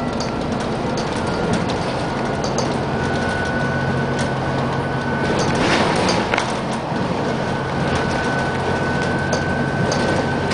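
Inside a double-decker bus on the move: steady diesel engine drone and road noise, with a thin high whine throughout and scattered clicks and rattles from the body, one louder knock about six seconds in.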